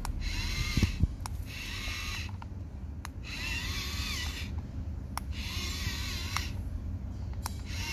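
Small electric motor and plastic gears of a remote-control transforming robot car toy whirring in four bursts of about a second each, the pitch wavering within each burst, as the toy folds between robot and car form. Sharp clicks come between the bursts.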